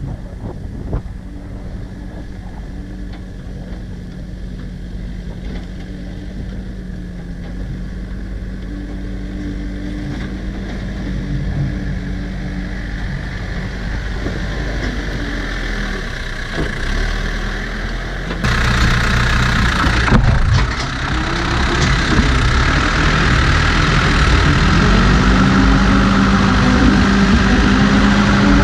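New Holland B95 backhoe loader's diesel engine working under load as the front loader bucket pushes and levels dirt. It grows louder and closer, jumps louder about two-thirds of the way through, and its pitch rises and falls with the throttle near the end.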